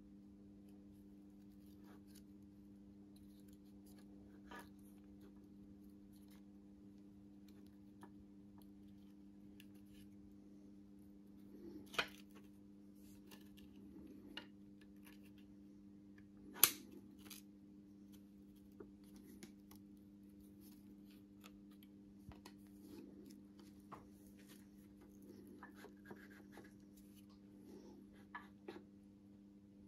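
Faint metal clicks and taps as a ringed piston and a homemade pliers ring compressor are worked into the cylinder bore of a 440 V8 block, with two sharper clicks about twelve and seventeen seconds in. A steady low hum runs underneath.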